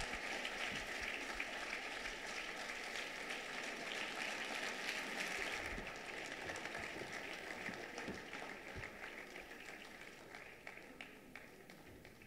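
Audience applauding, the clapping thinning out and dying away over the last few seconds.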